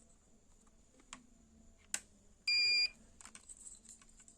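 Multimeter continuity tester giving one short, steady high beep as its probes bridge a lamp cable wire, showing the wire is unbroken. A few light clicks of the probes come before the beep.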